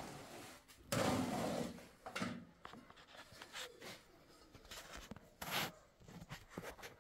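Hand work with a trowel and cement mortar: irregular scrapes of the trowel in the mortar basin and short knocks as ceramic tiles are set against the wall.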